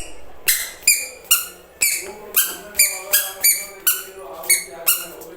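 A quick series of short, high-pitched squeaks, about a dozen, coming two to three a second.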